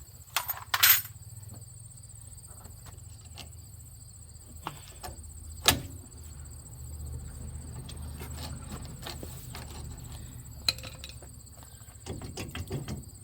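Metal clicks, knocks and rattles of hand tools and brake caliper hardware being worked loose: a loud clatter about a second in, a sharp knock near six seconds, and a run of rattling near the end. Crickets chirr steadily behind it.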